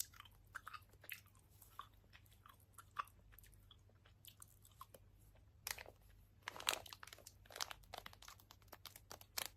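Close-up mouth sounds of someone chewing a sour-powder-coated gummy candy with open-mouthed lip-smacking: quiet, irregular wet clicks and smacks, several a second, louder and denser for a couple of seconds past the middle.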